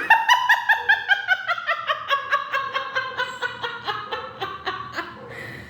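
A long cackling laugh, a run of 'ha-ha-ha' pulses about five a second, sliding steadily down in pitch and fading toward the end.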